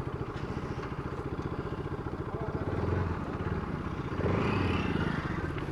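Bajaj Pulsar RS200's single-cylinder engine running at low revs with a steady, even putter, growing a little louder about four seconds in.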